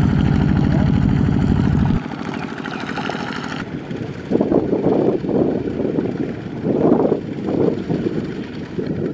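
Walking-tractor engines pulling loaded rice trailers through deep mud. One engine runs steadily for about two seconds, then the sound cuts. From about four seconds in, an engine surges and labours in uneven bursts as its wheels churn in the mud.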